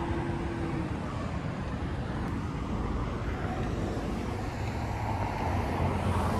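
Steady outdoor traffic and road noise, with a low hum that grows louder near the end.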